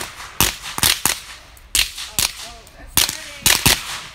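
Firecrackers going off in a bonfire: about seven sharp, separate bangs at irregular intervals.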